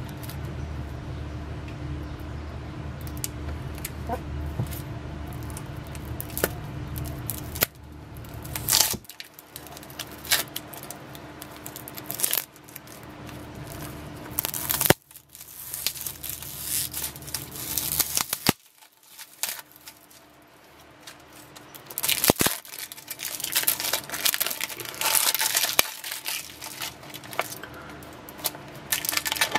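Clear plastic shrink-wrap crinkling and tearing as a small cardboard box is unwrapped and handled, with irregular rustling and sharp crackles. A low steady hum underneath stops about nine seconds in.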